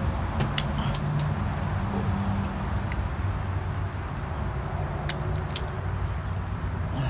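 Locking pliers clicking and clinking as a nail holding up the trailer's enclosed underbelly is twisted and pulled out, with the loudest metallic click about a second in and a couple more later. A steady low hum runs underneath.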